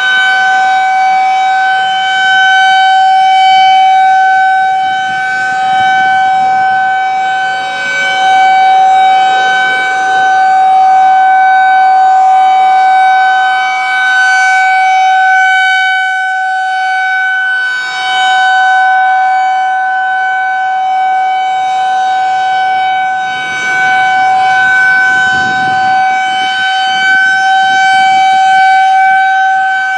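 Federal Signal 2001-130 rotating outdoor warning siren sounding a steady, unchanging tone, the Alert signal. It swells and fades every few seconds as the horn turns.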